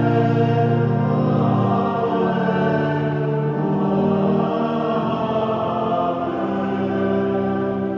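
Liturgical singing with sustained organ-like accompaniment: slow, chant-like voices over held chords that change every second or two.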